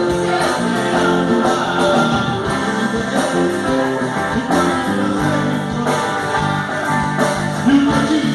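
Band music led by guitars, with a steady beat.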